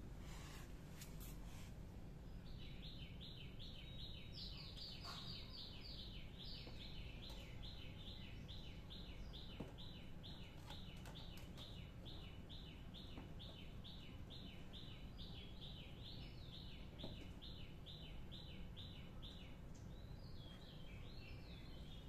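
A small bird calling with a short, high chirp repeated over and over, about three a second. It starts about two seconds in and stops near the end, over a faint low background rumble.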